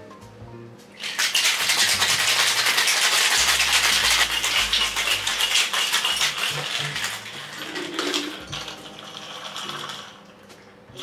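Ice rattling hard in a metal cocktail shaker as a whisky sour is shaken. It starts about a second in and eases off after about seven seconds.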